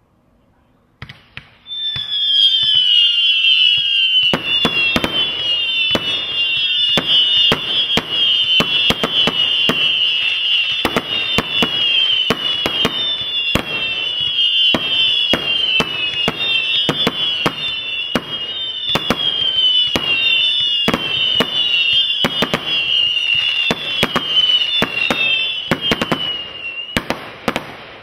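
Brothers Pyrotechnics Grand Slam firework firing: a dense stream of overlapping high whistles, each falling slightly in pitch, starts about two seconds in. Sharp cracks and bangs join them from about four seconds in, and it all stops shortly before the end.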